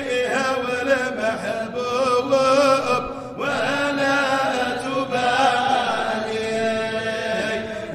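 Sufi qasida chanted in Arabic: a melodic vocal line that slides between held notes over a steady low held note, with a new phrase starting on an upward slide about three and a half seconds in.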